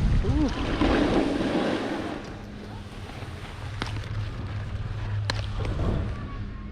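Wind rushing over the microphone and the hiss of riding through deep powder snow, loudest in the first two seconds and then easing off. A low steady hum joins about four seconds in, with a few sharp clicks.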